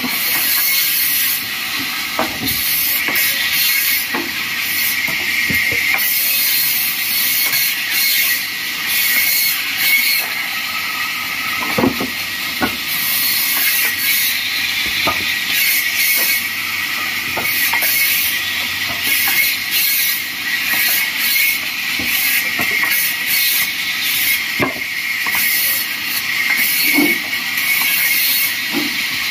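Vertical bandsaw cutting through wooden planks, a steady high hiss of the blade in the timber. Scattered short knocks from boards handled on the saw table.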